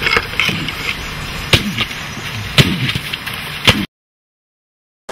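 Four sharp, loud knocks or thuds about a second apart over a rough noisy background, then the sound cuts off suddenly to dead silence for the last second.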